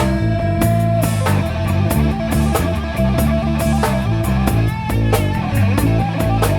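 Band playing a slow blues instrumental passage: electric guitar lead with a long held, bending note over bass and a steady drum-kit beat.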